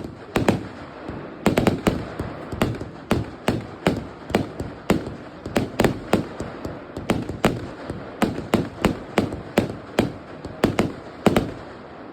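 Funke 'Anioł' firework firing a long run of sharp bangs, about two to three a second, with a hiss between them.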